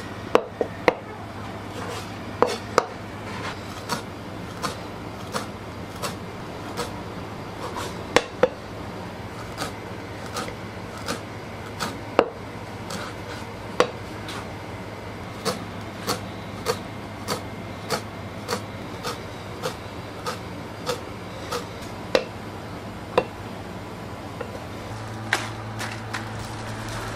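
Knife chopping on a cutting board: a long run of sharp strokes, uneven at first, then settling into an even beat of about three strokes every two seconds. A steady low hum runs underneath.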